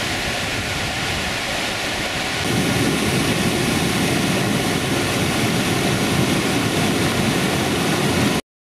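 Fast mountain stream of white water rushing over and between rocks, a steady rush of water. It grows louder about a third of the way in and cuts off abruptly just before the end.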